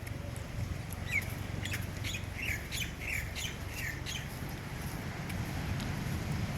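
A bird calling: a run of about six short chirps, roughly two a second, from about a second in to about four seconds in, over a low steady rumble.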